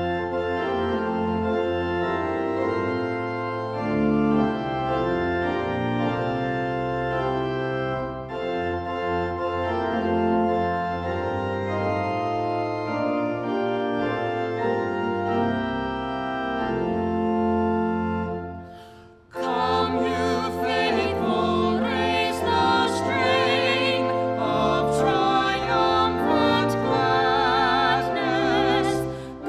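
Organ playing slow, sustained chords. About two-thirds of the way in it breaks off briefly, then starts a busier passage with a wavering vibrato in the upper notes.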